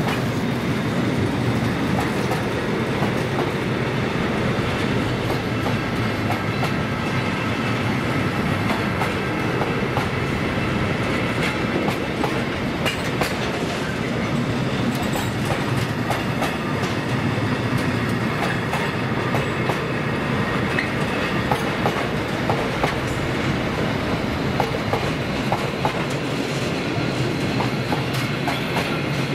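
A long rake of bogie oil tank wagons rolling steadily past. The wheels clatter over the track with a continuous rumble and many short clicks.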